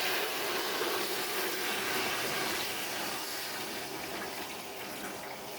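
Hot oil in a turkey fryer bubbling and sizzling around a whole turkey as it is hooked and lifted out, a steady hiss that eases slightly toward the end.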